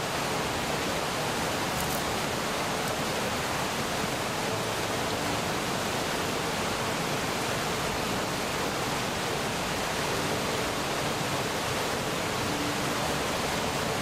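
River rapids running high, rushing and churning white over mossy boulders in a steady, unbroken rush: the river is carrying too much water.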